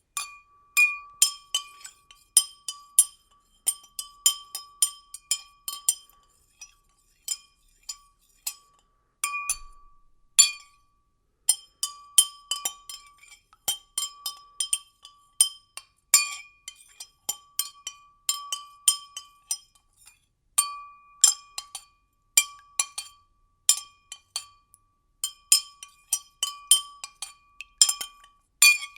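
A spoon stirring in a glass, clinking against its sides over and over, several clinks a second, and the glass ringing at one clear pitch. The stirring stops briefly a couple of times.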